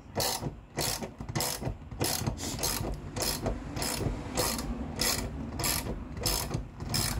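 Socket ratchet wrench clicking in steady strokes, about two a second, cranking the 21 mm screw of a tire bead breaker to force the bead off the rim.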